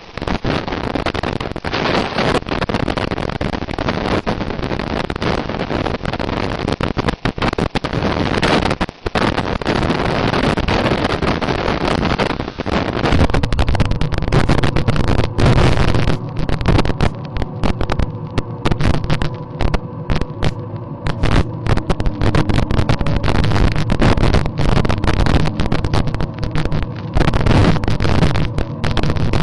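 Massey Ferguson tractor running as it tows a wooden-sided wagon over a rough dirt track, with frequent knocks and rattles from the wagon and wind buffeting the microphone. The running gets louder and deeper about halfway through.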